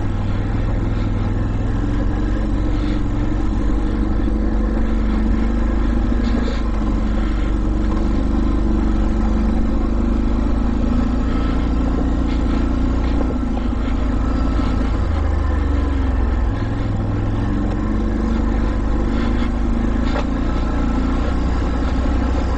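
ATV engine running steadily while the quad rolls down a steep, rocky dirt trail, with a few short knocks from the machine going over rocks.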